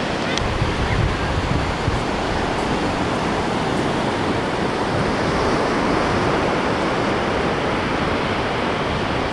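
Sea surf washing onto the beach in a steady rush of noise, with wind buffeting the microphone.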